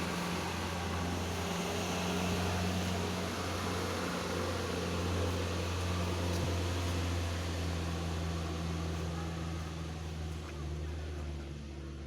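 An engine running steadily at an even speed, a low constant drone with a faint hiss over it.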